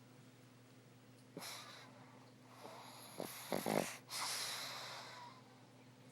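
Pug snoring while asleep. About a second and a half in comes a breath, then a loud fluttering snore, then a long hissing breath out.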